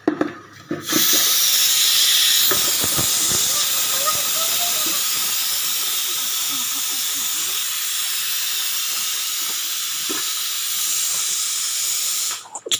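Pressure cooker whistling: a loud, steady hiss of steam venting from its weight valve, which starts about a second in and cuts off suddenly near the end.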